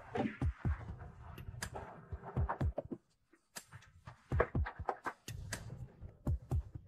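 Close-up handling sounds: a quick run of sharp plastic clicks and taps and short soft thumps as containers and bottles are picked up and set down. There is a brief break about three seconds in.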